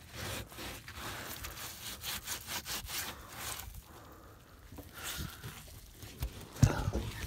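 Cloth scrubbing the dirty sidewall of a car tire in quick back-and-forth rubbing strokes, easing off about halfway through. A single low thump near the end.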